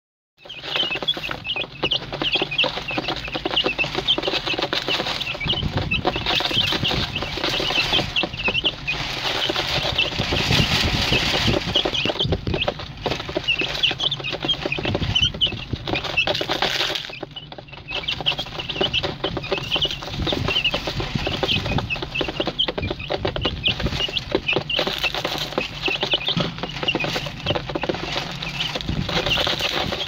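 Flock of young broiler chicks peeping busily while pecking grain from a plastic feeder tray, with many quick taps of beaks on the tray. The chirping thins briefly a little past the middle.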